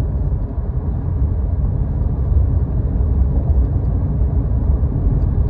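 Steady low rumble of a moving car heard from inside the cabin: road and engine noise with no change in pitch.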